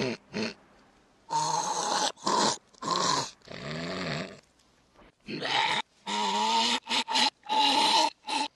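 A man's snoring edited into a string of short repeated snippets that start and stop abruptly, some pitched higher or lower than others.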